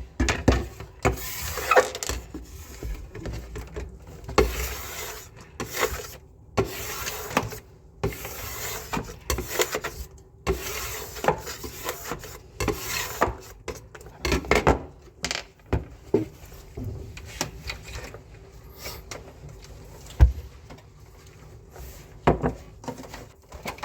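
Irregular clicks, knocks and short scraping noises of tools and parts being handled during work on a split air conditioner's indoor unit, with a sharp knock about twenty seconds in.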